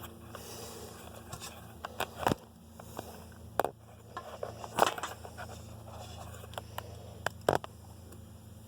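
A few separate sharp clicks and taps, the sound of small parts and the camera being handled, over a steady low hum.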